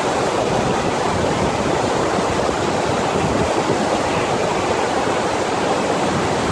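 Steady rushing of water pumped across a FlowRider surf machine's sheet wave.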